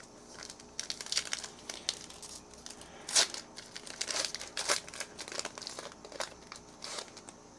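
A plastic trading-card pack wrapper crinkling and tearing as it is opened and handled, in a run of sharp crackles, loudest about three seconds in.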